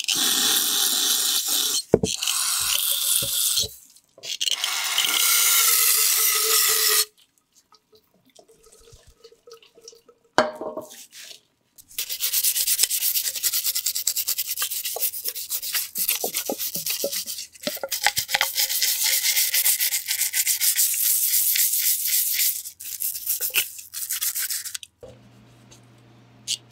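Aerosol cleaner sprayed through its red straw in two long hissing bursts onto the brake master cylinder. About halfway through, a small bristle brush scrubs rapidly inside the master cylinder's plastic fluid reservoir.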